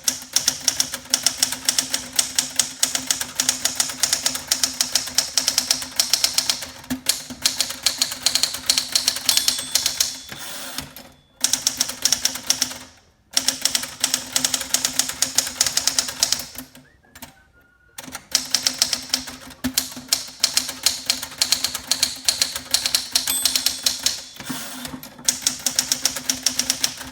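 1963 Penncrest Caravelle, a rebranded Smith Corona manual typewriter with a hollow platen, typed on quickly in long runs of sharp key strikes, a little loud. The margin bell dings twice near a line's end, and the typing pauses briefly a few times, as at the end of a line.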